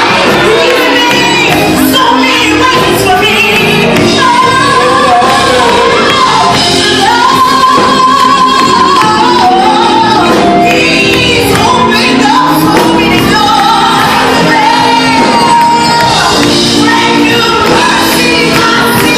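Church worship singing: several voices singing loudly with instrumental accompaniment, echoing in a large hall, with some shouts among the singing.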